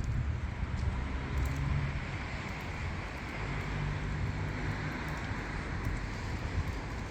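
Street ambience with a motor vehicle's engine and road noise running steadily, a faint engine hum rising and falling twice.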